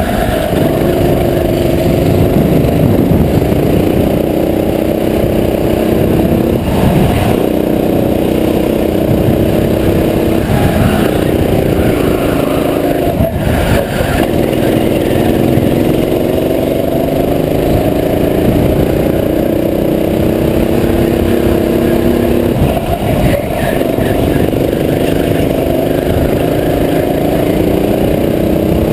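Go-kart's small engine heard from the driver's seat under racing throttle, its pitch climbing on the straights and dropping sharply three times as the driver lifts off for corners.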